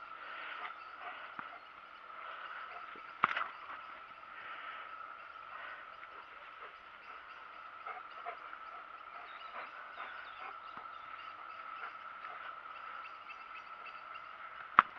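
Quiet garden ambience with a steady high-pitched tone throughout, broken by two sharp knocks, one about three seconds in and one near the end.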